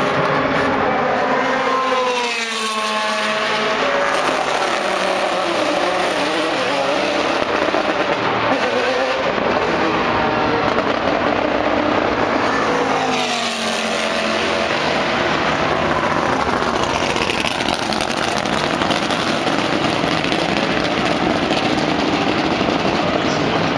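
GT race car engines running hard and continuously, with two cars passing by, their pitch dropping, about two seconds in and again about thirteen seconds in.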